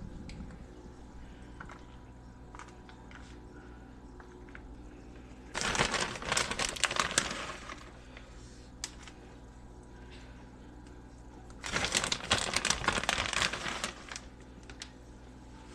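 Plastic bag of shredded cheese crinkling in two bouts of about two seconds each, the first about five and a half seconds in, the second about twelve seconds in, as cheese is taken out by hand. Between them only faint light rustling.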